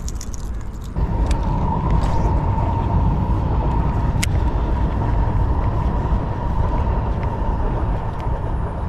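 Baitcasting reel being cranked steadily to retrieve a lure: a continuous whirring with a low rumble that starts about a second in.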